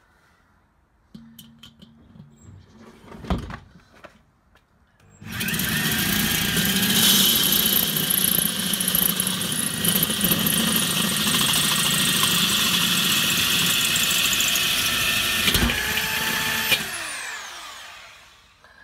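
A corded DeWalt drill drives a 1-inch hole saw through the thin steel bowl of a Weber kettle grill, cutting steadily for about eleven seconds. Then the trigger is let go and the motor winds down, falling in pitch. A sharp knock comes about three seconds in, before the cut starts.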